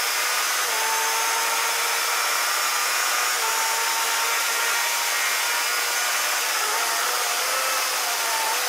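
Steady rushing wind noise over an onboard camera on a racing motorcycle at speed, with the bike's engine note faint underneath at nearly steady pitch.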